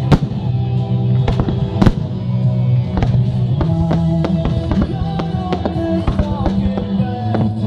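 Fireworks going off in sharp bangs, the loudest near the start and about two seconds in, with smaller pops scattered through the rest, over music with long sustained chords.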